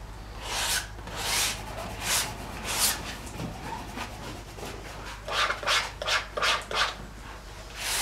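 Palette knife scraping oil paint across canvas in short strokes: four strokes in the first three seconds, then a quicker run of strokes a little past the middle.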